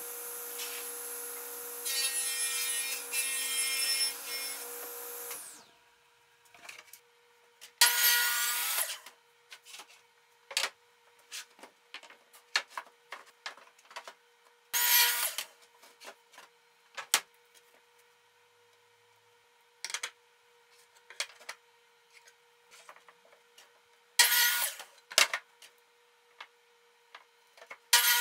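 A table saw runs and cuts plywood, louder while the blade is in the cut, then stops about five seconds in. After that come knocks and scrapes of plywood sheets being handled, broken by four short cuts from a DeWalt miter saw.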